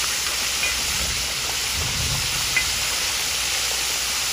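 Whole flounder deep-frying in a pot of vegetable oil: a steady hissing sizzle of bubbling oil, with one light click about two and a half seconds in.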